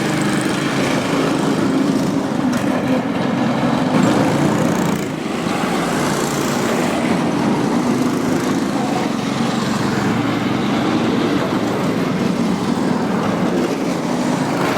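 Small cyclekart engines running steadily, a continuous drone like lawn-mower engines, with a short dip in level about five seconds in.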